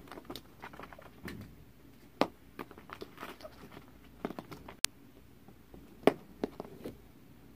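Scattered light taps and knocks of hollow plastic play balls bouncing and rolling on carpet, with a ferret's small scampering movements among them.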